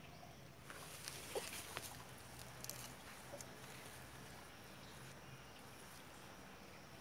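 Faint outdoor ambience with a few soft clicks and rustles in the first three seconds, over a steady low hum.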